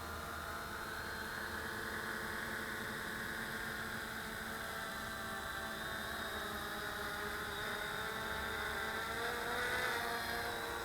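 HK FPV250 mini quadcopter's motors and propellers whirring in flight, the pitch drifting up and down with the throttle and rising briefly near the end.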